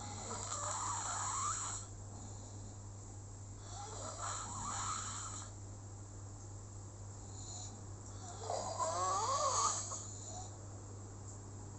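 Slow, regular snoring: three snores, each lasting a second and a half to two seconds and coming about every four seconds, with a wavering whistle in each one.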